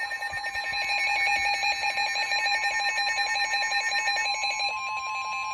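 Several NOAA weather radios sound their alert alarms at once for a severe thunderstorm warning. Rapidly pulsing electronic beeps from the different receivers layer over one another, and a steady tone joins in about four seconds in.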